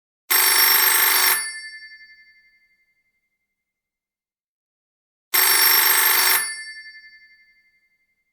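Telephone bell ringing: two rings about five seconds apart, each about a second of rapid bell clatter that then rings out and fades.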